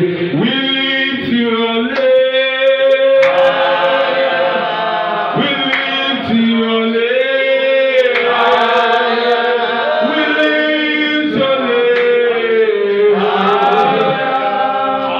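Worship song sung into a microphone: a lead voice holding long notes, with slides between them.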